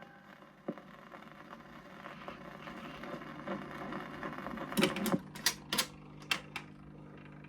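Shellac 78rpm record surface noise, a hiss with scattered crackles, as the stylus runs on past the end of the song. About five seconds in come a run of sharp mechanical clicks from the record player, and then a steady low motor hum.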